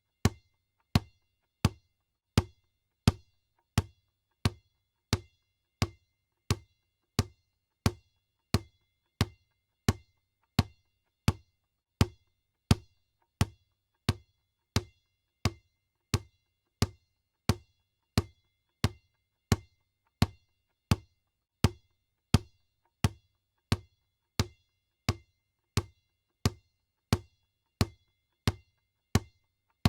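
Basketball bouncing on the floor in a steady, even dribble, about three bounces every two seconds, each a low thud with a short ring.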